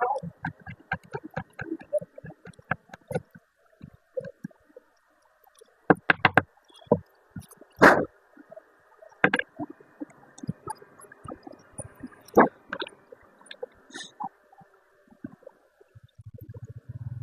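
Irregular clicks, knocks and clanks of motorcycle parts and tools being handled during cleaning and reassembly, with a few louder knocks about six, eight, nine and twelve seconds in. Near the end a low, evenly pulsing hum begins.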